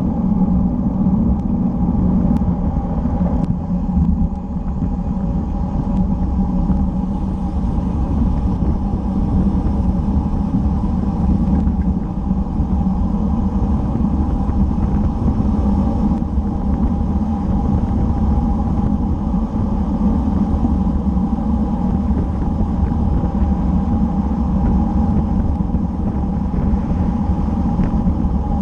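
Wind rushing over a bike-mounted camera's microphone and road-bike tyres rolling on asphalt at speed: a steady low rumble with a faint steady hum.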